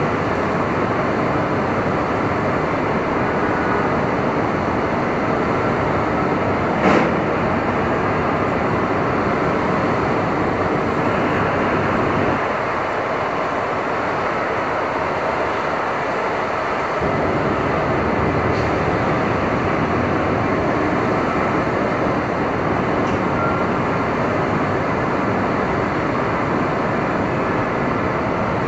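Manhattan street ambience on a stormy day: a steady, dense wash of traffic noise mixed with wind and rain. There is a single sharp knock about seven seconds in, and the low rumble eases for a few seconds in the middle.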